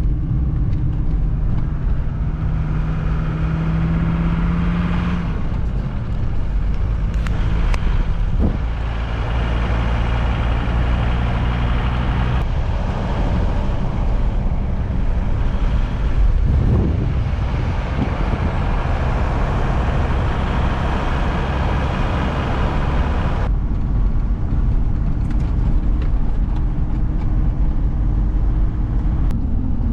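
Campervan driving along a road: steady engine and road noise, with the engine note shifting abruptly several times as the van changes speed or gear.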